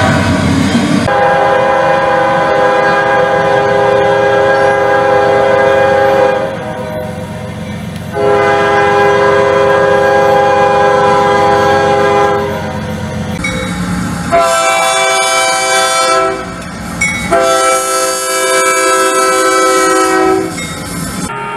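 Diesel locomotive horn sounding the grade-crossing pattern: two long blasts, a shorter one, then another long one, over a low engine rumble.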